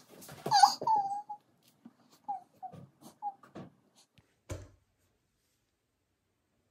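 High whimpering: a string of short whines, each falling in pitch, followed by a single sharp knock about four and a half seconds in.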